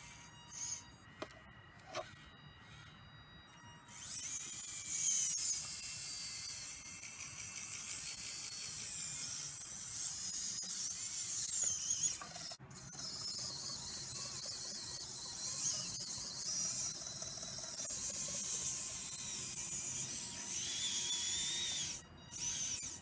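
Electric hydraulic pump and valves of an RC Schaeff HR16 mini excavator whining high-pitched, with the pitch wavering as the arm works. It comes in short bursts at first, then runs almost without pause from about four seconds in.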